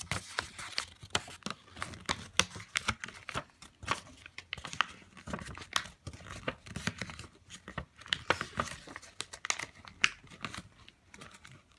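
A sheet of paper being folded and creased by hand, giving many short, irregular crinkles and crackles.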